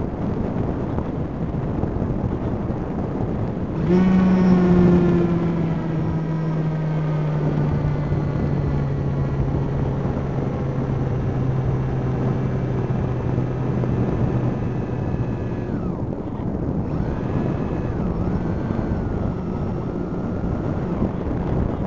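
Steady rushing noise of a low-flying camera drone's propellers and the wind on its microphone. About four seconds in, a low droning tone joins and slowly falls in pitch. The whole sound cuts off suddenly at the end.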